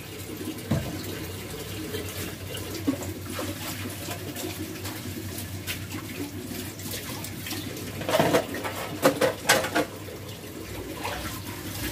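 Kitchen tap running steadily, with a few sharp knocks and clinks of dishes about eight to ten seconds in.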